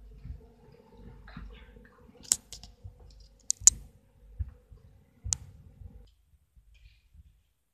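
A few sharp clicks and knocks, the loudest about two and a half, three and a half and five seconds in, over a faint steady hum that stops about six seconds in.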